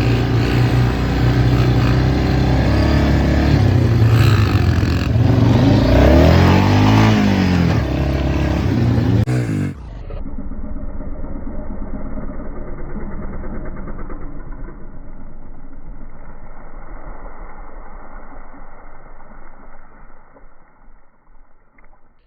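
A vehicle engine running, its pitch rising and falling a few seconds in. About ten seconds in the sound cuts abruptly to a quieter, muffled engine-like hum that gradually fades out.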